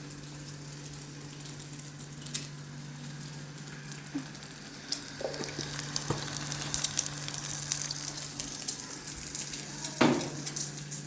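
Food sizzling as it fries in a pan: a steady crackling hiss over a constant low hum, with a few small clicks and one short louder sound about ten seconds in.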